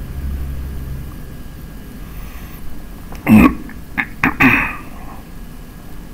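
A person coughing close to the microphone, two loud coughs about a second apart with short sharp sounds between them, over a low steady hum.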